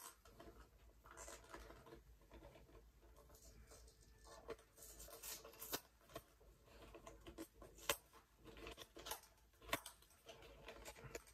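Faint rustling and scattered small clicks and ticks of packaging being handled as a trading-card pack is opened.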